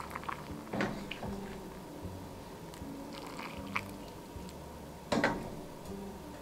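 Freshly boiled water poured through a plastic canning funnel into a pint jar of raw-packed corn kernels, giving wet pouring sounds with a few sharp clicks, the loudest about five seconds in.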